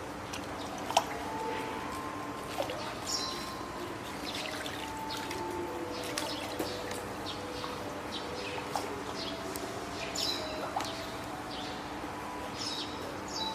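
Spotted seal pups giving drawn-out, steady-pitched cries that overlap one another, over trickling and dripping water in their pool. A sharp click about a second in.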